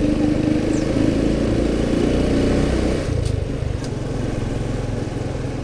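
Motorcycle engine running while being ridden, easing off about three seconds in, with two faint ticks soon after.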